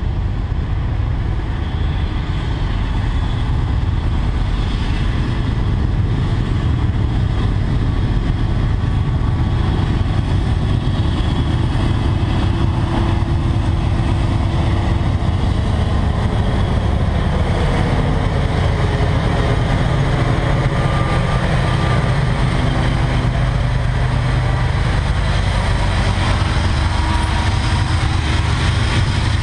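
Freight train with diesel locomotives approaching and passing on a far track, then a long string of tank cars rolling by. A steady heavy low rumble throughout, with faint engine tones coming in about halfway.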